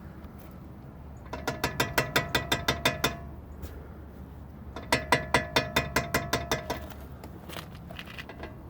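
Brakes of a 2000 Jeep Wrangler TJ chattering: two runs of rapid clicks, about eight a second, each lasting about two seconds, with a metallic ring. The brake pads appear to shift slightly in their bracket, letting the brake lock up and release over and over.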